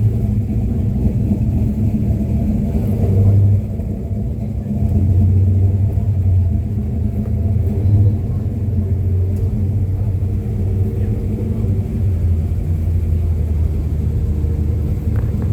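A car engine running steadily with a low rumble, swelling briefly in loudness a couple of times.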